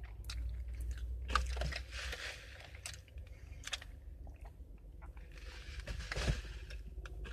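Close-miked eating sounds: a person chewing, with small mouth clicks and a couple of longer breathy stretches.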